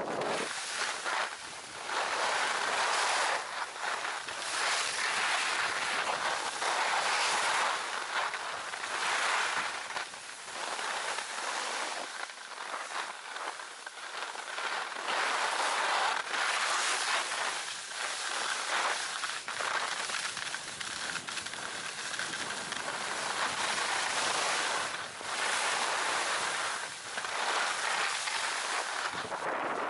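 Edges scraping and hissing over packed, groomed snow while riding downhill, swelling and fading with each turn, mixed with wind on the microphone.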